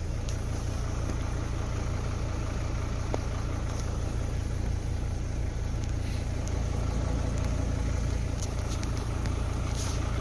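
Heavy rain falling on a flooded street, a steady hiss with a few scattered drop ticks, over a constant low rumble.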